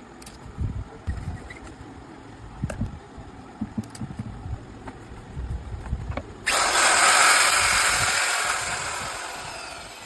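Light knocks and handling clatter from a Makita AG5 power tool, then about six and a half seconds in its motor starts suddenly with a loud rushing noise that slowly fades away.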